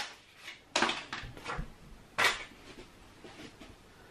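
White wire shelf insert knocking against the inside of a kitchen wall cupboard as it is set in place: two sharp knocks, one under a second in and one about two seconds in, with lighter taps between and after.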